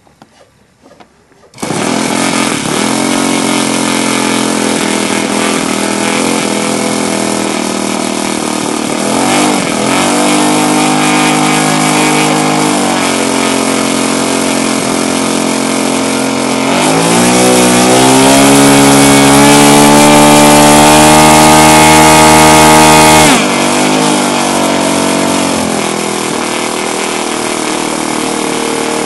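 Saito FG-11 four-stroke gasoline model aircraft engine, a single-cylinder, starting up abruptly about a second and a half in and running steadily. It is briefly blipped about ten seconds in, then opened up to high revs with a rising pitch for several seconds before the throttle is cut back suddenly and it settles to a lower, steady run.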